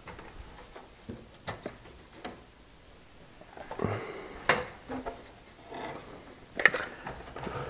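Light scattered clicks and knocks of plastic and metal parts handled at a computer case's drive bays while tool-less drive-bay clips are fitted, with two sharper clicks, one around the middle and one near the end.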